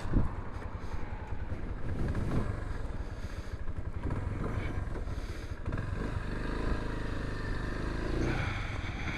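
Kansas 150 motorcycle's single-cylinder engine running steadily, with a sharp knock just after the start and a few rising revs near the end.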